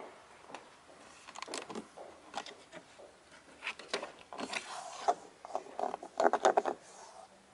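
A hand rubbing, gripping and tapping the plastic interior door trim and armrest of a Volkswagen Scirocco, making scattered scrapes and clicks, with a quick run of louder taps a little past six seconds in.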